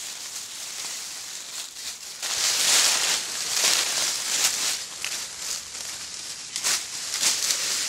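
Several people's footsteps crunching and rustling through dry fallen leaves, getting louder about two seconds in.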